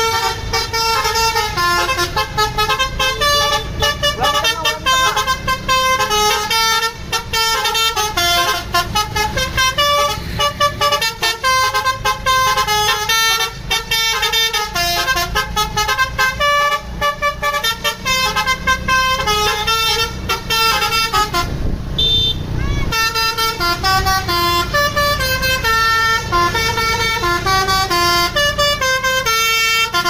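Multi-note 'basuri' telolet horn on a tour bus, playing a tune note after note, with a short break about three-quarters of the way through.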